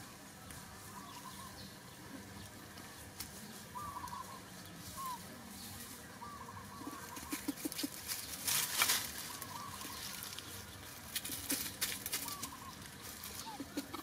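Dry leaf litter rustling and crackling under a moving macaque, loudest about eight to nine seconds in, with short warbling chirps repeated throughout.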